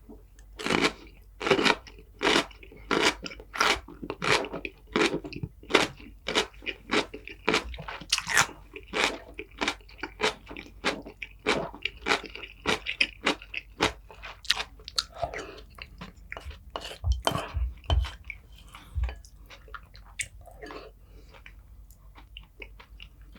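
Crunchy food chewed close to the microphone: crisp crunches at a steady rhythm of about one and a half a second, becoming sparser and softer in the second half, with a few dull low thumps.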